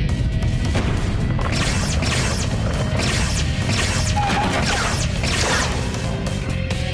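Cartoon earthquake sound effects: a continuous deep rumble with repeated crashing and sweeping debris noises, over background score music.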